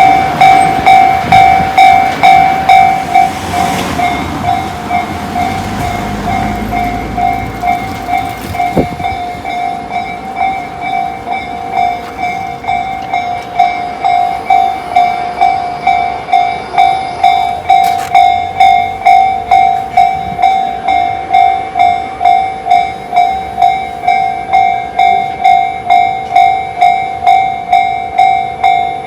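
Railway level-crossing alarm ringing its repeating electronic two-tone strokes, about one and a half a second (the Tobu 'sound C' type). A passing train's rumble fades away during the first several seconds.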